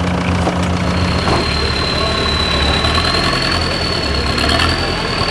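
Off-road buggy's engine running at low revs, with a thin steady high-pitched whine coming in about a second in.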